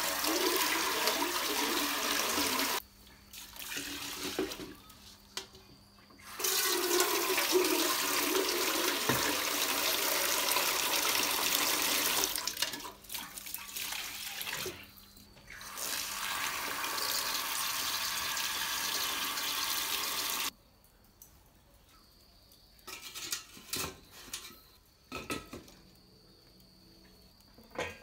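Water running from a tap into a metal bowl and being poured over sticky rice in a woven bamboo basket while it is rinsed, in three long spells with short pauses between. The last several seconds are quiet apart from a few light knocks.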